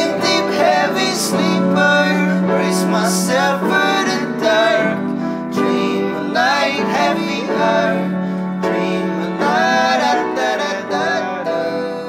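A song with a sung vocal over acoustic guitar and upright piano.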